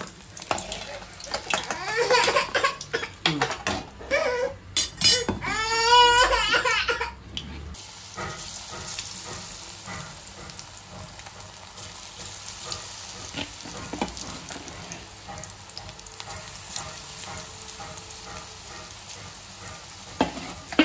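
Battered egg pieces deep-frying in hot oil in a steel kadai: a steady sizzle with fine crackling bubbles. In the first several seconds there are louder, irregular clinks and scrapes as a slotted steel skimmer works in the pan.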